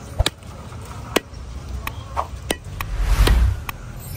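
Heavy cleaver chopping boal catfish into pieces on a wooden chopping block: about six sharp chops at uneven intervals. A brief rush of noise with a low rumble swells up about three seconds in.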